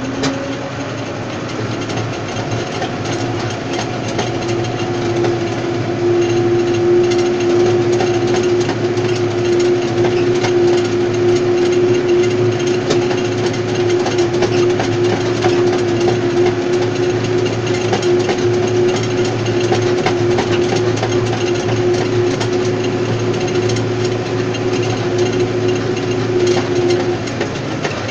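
Tractor engine running steadily under load while pulling a Kromexim tine stubble cultivator through dry soil, with a constant clatter and rattle from the cultivator's steel frame and tines. It gets a little louder a few seconds in.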